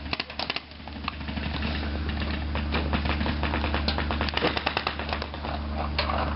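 Paintball markers firing rapid strings of shots, a fast popping rattle that comes in volleys, thickest at the start and again through the middle, over a steady low hum.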